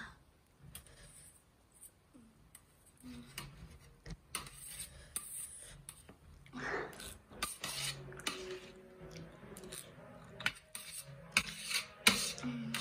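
Metal chopsticks clicking and scraping against a stainless steel tray while they gather up Maggi noodles, in scattered short strokes that grow busier in the second half, with one sharp click near the end.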